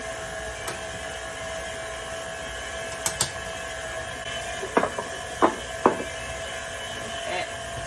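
Stand mixer with the paddle attachment running steadily, beating Swiss meringue buttercream as peanut butter is added: a steady motor whine. A few sharp knocks from a spatula tapped against the mixing bowl come about three seconds in and again around five to six seconds in.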